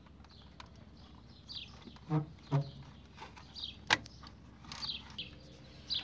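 Small plastic clicks and one sharp snap about four seconds in, as a washing machine's control board is prised out of its plastic housing clips with a screwdriver. Small birds chirp repeatedly in the background with short falling calls.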